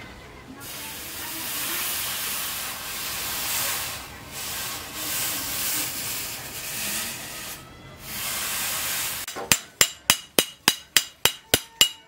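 Hot steel cleaver blade, forged from a tractor plough disc, hissing steadily as it is quenched in a water trough; the hiss dips twice as the blade is moved in the water. About nine seconds in it gives way to quick hammer blows, about four a second, on the blade over an anvil, the steel ringing with each strike.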